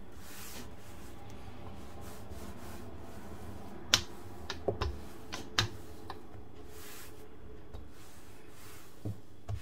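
A rolling pin working dough on a floured worktop, giving a few sharp clicks and knocks about four to six seconds in and two fainter ones near the end, over a steady low hum.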